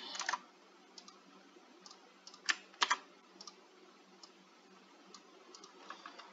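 Sparse clicks and taps of a computer keyboard and mouse, with two louder clicks about two and a half seconds in.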